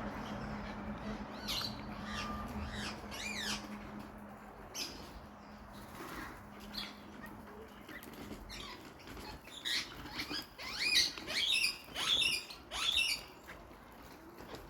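Grey parrot making a string of short squeaks and whistles, some sliding up or down in pitch, coming thickest about two thirds of the way through.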